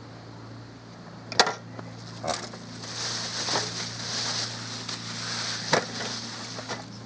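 A knife knocking sharply once on a wooden cutting board, then a thin plastic bag crinkling and rustling for several seconds as it is handled, with a couple of small knocks, under a steady low hum.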